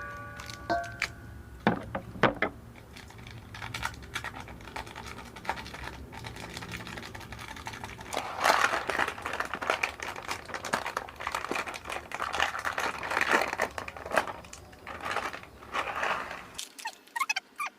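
Dry, crunchy chatpate ingredients being handled and mixed, with a few sharp clicks near the start and then a long run of crinkling, crunching strokes.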